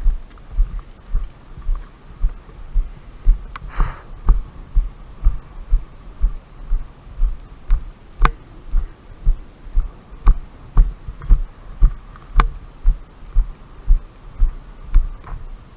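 Low, rhythmic thumps about two a second, typical of a player's footfalls jarring a body-worn camera while moving. A few sharp clicks come in the middle, about four seconds apart.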